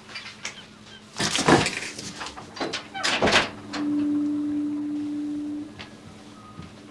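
Paper rustling and small knocks as loose stamps and a stamp album are handled on a desk. About halfway through, a steady low tone starts and holds for about two seconds before stopping.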